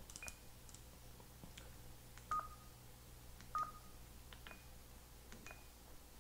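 Faint clicks from the controls of an Icom ID-51A handheld transceiver as a memory name is keyed in, many with a short high confirmation beep. Two louder, lower beeps sound a little over two seconds and about three and a half seconds in.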